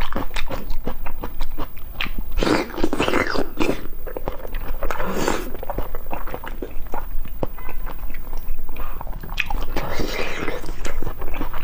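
Close-miked eating: wet chewing and biting of sauced meat, with many quick, irregular mouth clicks and smacks.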